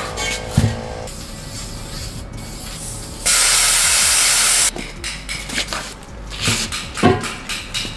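An aerosol spray can spraying into a tire being mounted on a wheel: one steady hiss of about a second and a half, a little over three seconds in. A few knocks come before and after, the loudest about seven seconds in.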